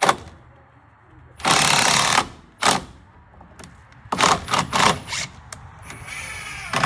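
Cordless power driver driving a screw in short bursts: a long run about a second and a half in, a brief one, then several quick pulses around four to five seconds, and a quieter whine near the end.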